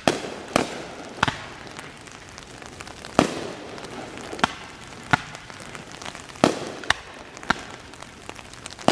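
Aerial fireworks shells bursting: about ten sharp bangs at uneven intervals, several trailing off in an echo.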